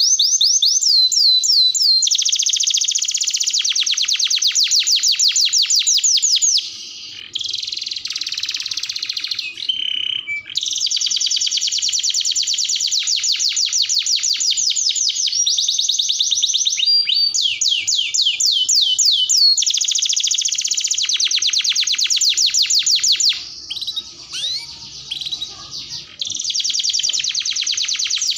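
Domestic canary singing long runs of rapid, high-pitched trills, each roll made of fast repeated notes. The song breaks off briefly about a quarter of the way in and again near the end.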